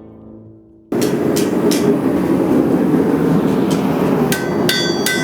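A lit smithing forge running with a steady roar, with sharp metal-on-metal strikes over it. A few come early, then from about four seconds in they ring out about three times a second.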